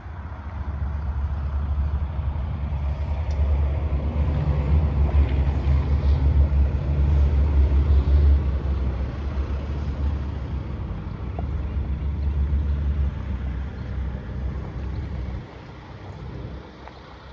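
Frick rotary screw compressor with its 150 HP electric motor running: a steady, deep hum that swells in the first few seconds and drops off sharply near the end.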